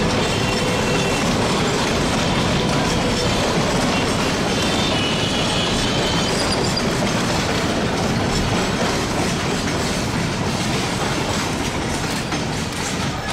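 Passenger train coaches rolling out over the rails, a steady loud rumble of wheels on track with faint high wheel squeal about 3 to 6 seconds in; the sound eases a little near the end as the train pulls away.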